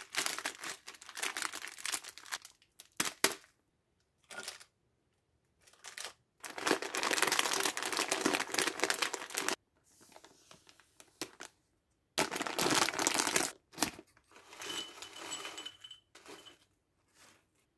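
Plastic and foil snack packaging crinkling and tearing as the bags are handled and opened, in several separate bursts with short silences between. Near the end, small crackers pour from their bag into a bowl.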